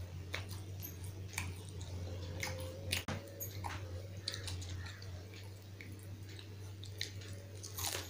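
Close-miked chewing and crunching of crisp fried potato pakoda, full of short sharp crackles, over a steady low hum.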